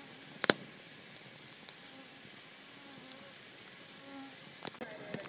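Wood fire crackling with scattered sharp pops, one loud pop about half a second in, while insects buzz close by in short passes.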